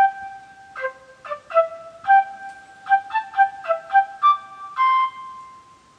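A short solo melody in a flute-like tone, played one note at a time and ending on a long held note.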